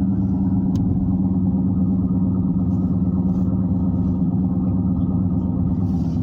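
Car driving at steady speed, heard from inside, with a constant low droning hum from a front wheel. This is the noise of a bad wheel bearing, or possibly a bad tire.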